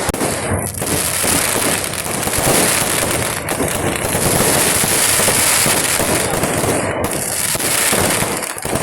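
Kerala vedikettu fireworks going off in a dense, continuous barrage: rapid cracks and bangs packed so close together that they run into one another without a break.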